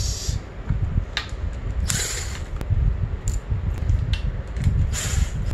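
Cordless driver spinning a 5/16 socket in short bursts while tightening the front brake line clamp bolts on a fork guard. One whirr cuts off just after the start and two brief ones follow, about two and five seconds in, with scattered clicks of metal parts and a low rumble underneath.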